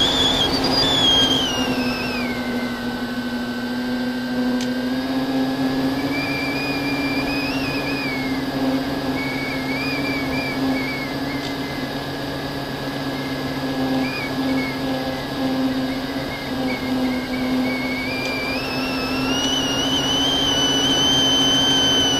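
FPV quadcopter's brushless motors and propellers whining in flight. The pitch drops about two seconds in, wavers as the throttle changes, and climbs again near the end.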